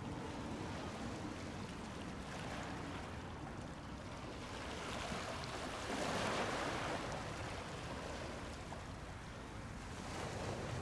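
Sea water washing and lapping against the shore over a low wind rumble, with one louder wash swelling up about six seconds in.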